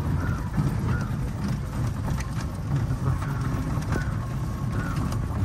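Vehicle engine running with a steady low rumble, with a few faint short high chirps now and then.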